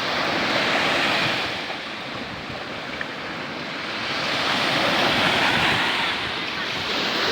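Sea surf breaking and washing on the beach, swelling and fading with each wave about every four to five seconds, with some wind on the microphone.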